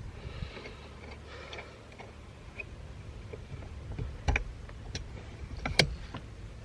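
Small clicks and knocks from hand-fitting metal steering-wheel hub parts. Two sharper clicks come about four and six seconds in, with a faint scraping early on over a low hum.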